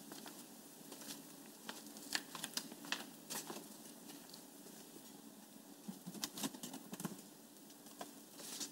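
Faint rustling with scattered soft taps and clicks as a person moves about a quiet bedroom, over a low steady room hum.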